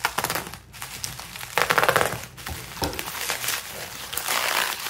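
Bubble wrap crinkling and rustling as it is pulled off a package, in several bursts, the loudest about two seconds in.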